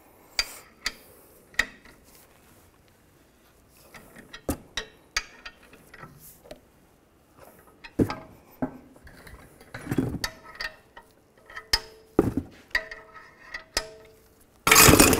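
A bearing press being cranked with a ratchet to force the old rear wheel bearing out of the knuckle: irregular ratchet clicks and metal knocks, then short squeaks as the bearing shifts in its bore. A loud, harsh burst of noise comes near the end.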